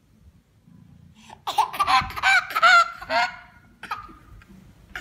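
A baby squealing: a quick run of short, high-pitched shrieks that rise and fall, starting about a second and a half in and lasting about two seconds, with one faint squeal after.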